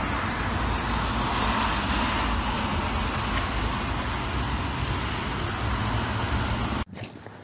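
Steady street noise, like traffic, that cuts off abruptly near the end.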